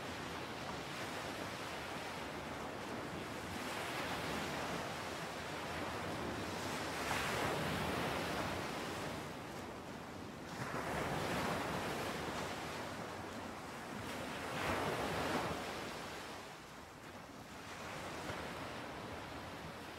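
Ocean surf: waves breaking and washing onto the shore, a steady rushing that swells and ebbs in slow surges, three of them stronger than the rest.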